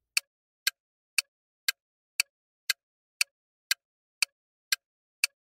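Quiz countdown timer ticking like a clock: short, sharp ticks, two a second, evenly spaced.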